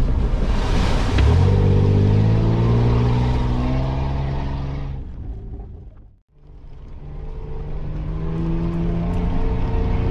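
Off-road 4x4 driving over a rough track: engine and cabin rumble with steady held tones over it. The sound fades out about six seconds in and fades back in.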